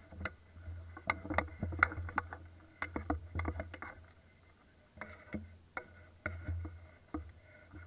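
Footsteps crunching through dry leaves and snapping twigs on a forest floor, heard as irregular clusters of sharp crunches and knocks, over a steady low rumble from the gun-mounted camera being carried.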